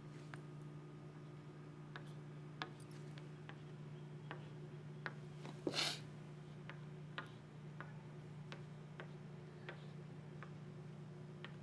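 Yellow lumber crayon marking walnut boards: faint scattered ticks as it taps and drags on the wood, and one brief scratchy stroke about six seconds in, over a steady low hum.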